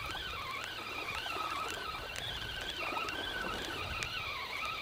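Spinning reel on a feeder rod whirring as line is wound in against a hooked fish, its whine rising and falling in pitch with each turn of the handle.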